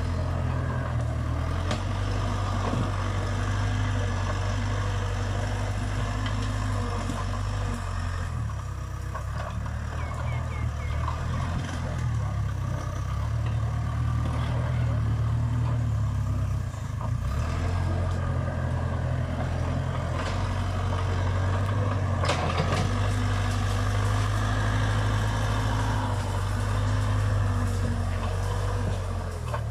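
Diesel engine of a Case 580 Super K backhoe loader running hard as the front bucket shoves through brush, its note shifting with the load. A sharp crack about three quarters of the way through.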